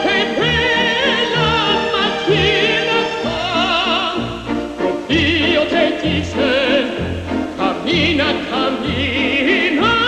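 Operatic singing with wide vibrato over orchestral accompaniment, the low notes growing stronger about five seconds in.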